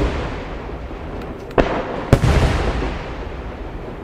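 Large aerial firework shells bursting overhead: a deep rumble from a burst just before fades away at the start, then two sharp booms about half a second apart, roughly one and a half and two seconds in, each followed by a long rolling rumble.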